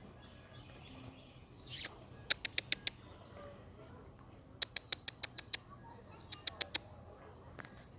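Ducks pecking: three quick runs of sharp clicks from their bills, five to seven snaps in each, with a short hissy rustle before the first run.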